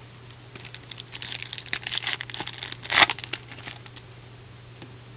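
A trading card pack's wrapper being torn open and crinkled: about three seconds of crackling, with the loudest tear about three seconds in.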